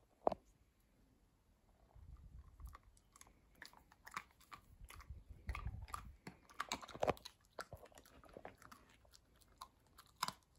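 A greyhound chewing and crunching a treat. Irregular crisp crunches and wet chews start about two seconds in.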